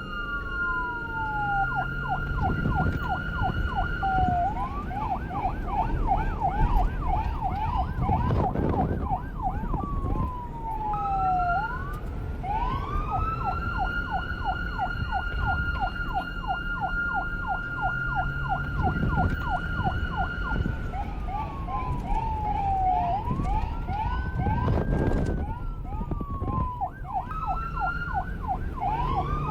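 Police car siren cycling through its patterns: a steady high tone, slow falling and rising wails, and a fast yelp of about three sweeps a second, with a yelp and a steady tone overlapping at times as if two sirens sound at once. A low traffic rumble runs underneath, swelling twice.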